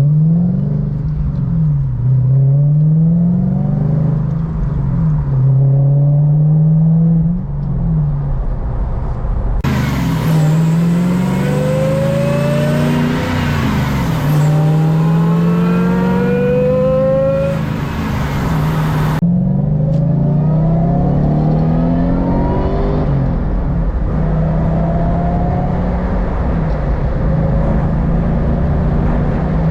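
Supercharged V8 of a manual-swapped 1998 Lexus GS400 accelerating through the gears. The exhaust note climbs in pitch and drops back at each upshift, over and over.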